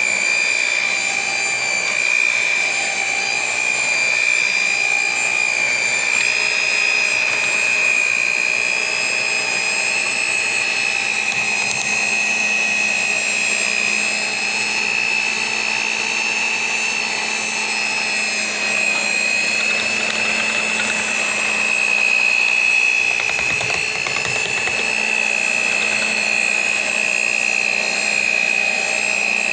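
Electric kitchen mixer's motor running steadily, mixing batter, with a high, even whine and a low hum.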